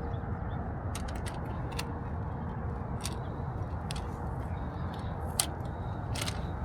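Scattered crinkles and clicks of litter being handled and picked up, about half a dozen over a few seconds, over a steady low rumble.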